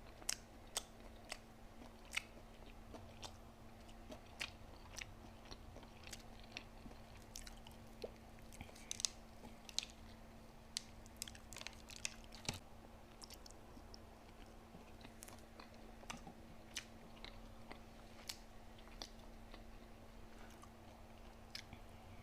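A person chewing fast food close to the microphone, with irregular small clicks and smacks of mouth and food over a faint steady hum.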